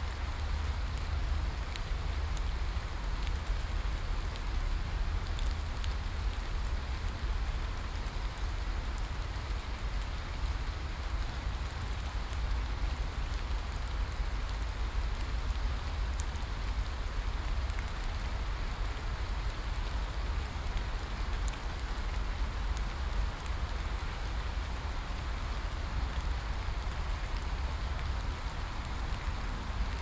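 Steady rain falling, with scattered sharp drop hits on top and a constant deep rumble underneath.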